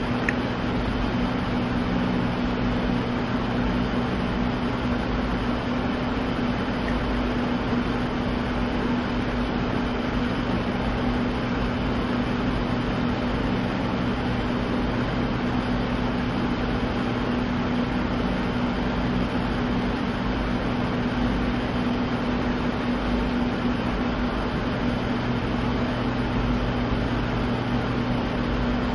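Steady machine hum over a constant hiss, unchanging throughout.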